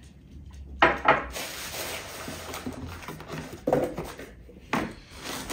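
A ceramic mug set down with a sharp clunk about a second in, then the rustle and knocks of a cardboard box being handled and its flaps opened.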